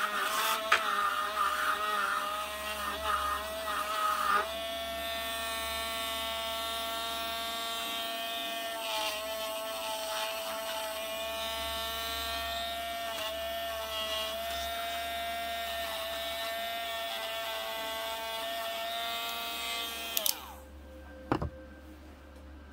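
Handheld rotary tool running at high speed, its bit grinding at a small metal friction-drive pulley. The pitch wavers under load at first, then holds steady with brief dips as the bit touches the work. Near the end it is switched off and its pitch falls as it spins down, followed by a single click.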